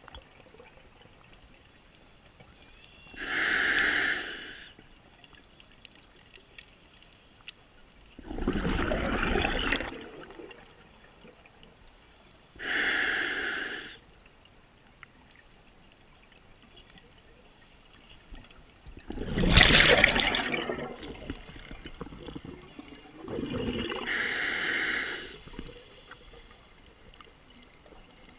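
A diver breathing slowly through a scuba regulator underwater: short hissing inhalations alternate with longer rumbling bursts of exhaled bubbles, about five breaths in all, the loudest bubble burst near the end.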